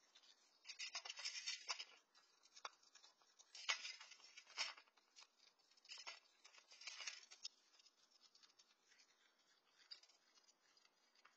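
Raccoon eating dry cat kibble from a steel bowl: crackly crunching and clicking in several bursts, fainter and more scattered in the last few seconds.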